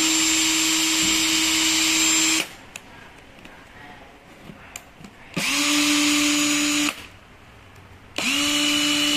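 Cordless drill running free with an empty chuck, a steady motor whine that stops about two and a half seconds in. It spins up again for about a second and a half near the middle and once more near the end, each start a quick rise in pitch that levels off.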